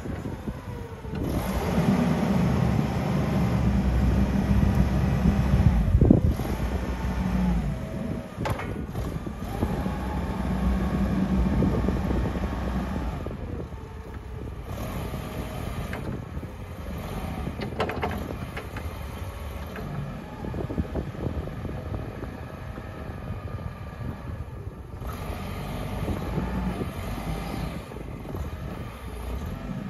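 LPG-fuelled Toyota 02-FGF15 forklift engine running, revving harder for the first dozen seconds while the mast is raised, then settling to a lower, quieter run. A few sharp clicks.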